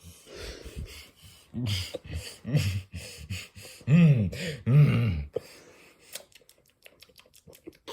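A person imitating loud, weird snoring with the voice: four loud snorts whose pitch swoops up and down, after a quieter breathy start. Quick faint clicks follow near the end.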